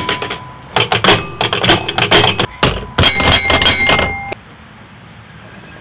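Footsteps on a wooden playground boardwalk with bolted metal plates, each step a hollow knock, some with a short metallic ring. A denser, louder run of steps stops abruptly about four seconds in.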